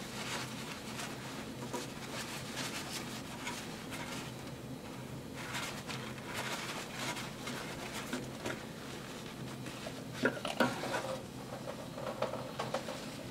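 Paper shop towels rustling as gloved hands handle them, with small clicks and scrapes throughout and a couple of sharper knocks about ten seconds in.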